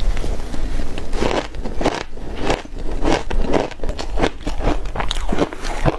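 Ice being bitten and chewed close to the microphone: repeated irregular crunches and crackles.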